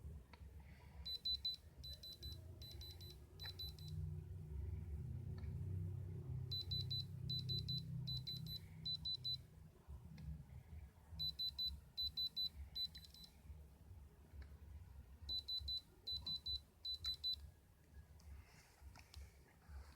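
Electronic alarm beeping in groups of four short high beeps, a group about every four to five seconds, over a low rumble.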